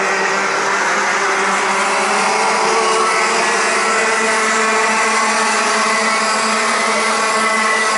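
Several Rotax Max 125 cc two-stroke kart engines running at racing revs together, a steady many-toned engine sound whose pitches drift slightly up and down as the karts lap the circuit.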